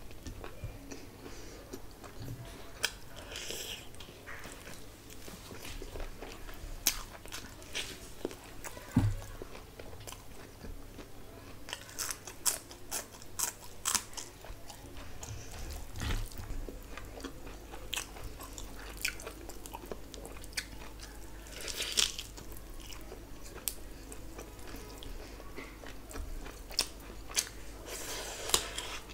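Close-miked eating sounds: a person biting and chewing meat curry and rice eaten by hand, with irregular sharp clicks and wet mouth sounds.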